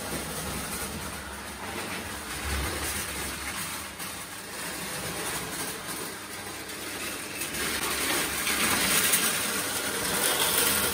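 Prewar Lionel O gauge toy train running on tinplate track, a steady rumbling clatter of wheels and motor that grows louder over the last few seconds as the train comes closer.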